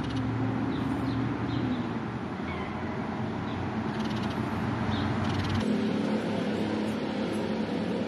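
A cat meowing over a steady background hum, with short high chirps now and then. The low hum drops out abruptly about two-thirds of the way through.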